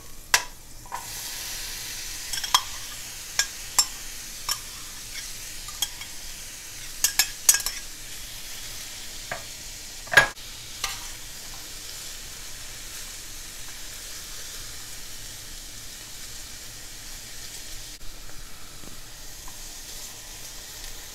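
Diced bell peppers and carrots sizzling in oil in a stainless steel Cutco wok, with a metal slotted spoon scraping and clinking against the pan as the vegetables are stirred. The sizzle comes up about a second in, and the loudest clink of the spoon falls about ten seconds in.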